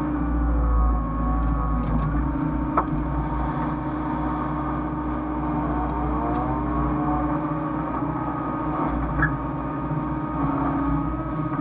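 Hyundai excavator's diesel engine running steadily under load, with a hydraulic whine that rises and falls as it works. Two brief sharp sounds stand out, about three seconds in and again around nine seconds.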